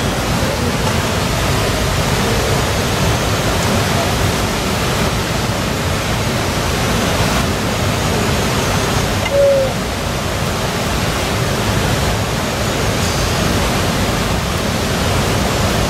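Steady rushing noise with no rhythm or pitch, with one brief squeak about halfway through.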